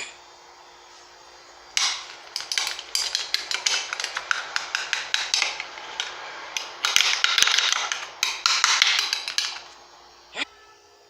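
Rapid knocking and clattering of hard objects: dozens of sharp strikes starting about two seconds in, densest in the middle, dying away about a second and a half before the end.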